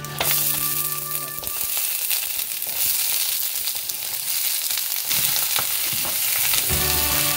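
Mixed vegetables (carrot, broccoli, cauliflower) tipped into hot oil in a nonstick pan set off a loud sizzle that starts suddenly. Clicks of pieces landing and a wooden spatula stirring run through it. Background music fades out at the start and comes back in near the end.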